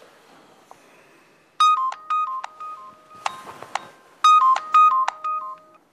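Mobile phone ringing: a short electronic ringtone melody of stepping beeps, played twice.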